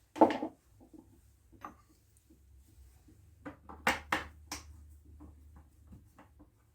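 Clicks and knocks of things being handled: one loud knock about a quarter second in, a quick cluster of sharp clicks around four seconds in, and faint ticks between, over a faint steady low hum.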